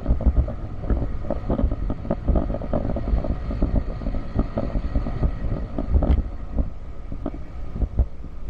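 Motorcycle running slowly over a rough, stony road, with frequent irregular knocks and rattles as it jolts over the loose stones, and wind on the microphone.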